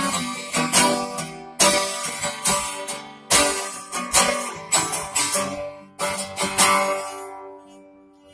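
Acoustic guitar strumming chords, with a strong stroke about once a second. The last chord is left to ring and fades away near the end.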